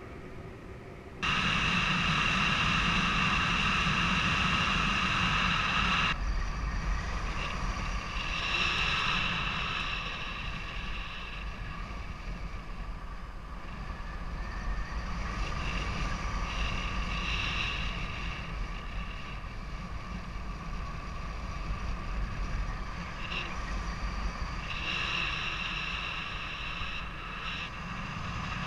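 Airflow rushing over the microphone of a paraglider pilot's camera in flight: a low rumble with steady high whistling tones on top that shift in pitch several times.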